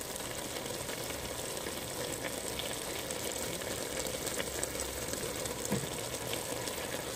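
Cabbage and chicken curry sizzling in the pot as it cooks down dry: a steady hiss scattered with small crackles and pops.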